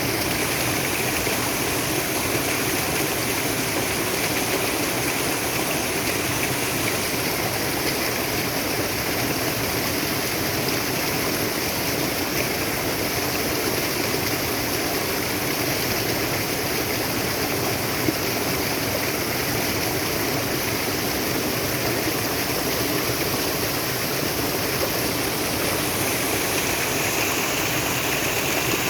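Water flowing steadily in a stream, a continuous even rush. There is a single small click about eighteen seconds in.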